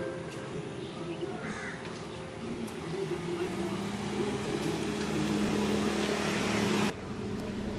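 Street traffic and a car's engine running, a steady engine hum over road noise that grows louder and then cuts off suddenly near the end.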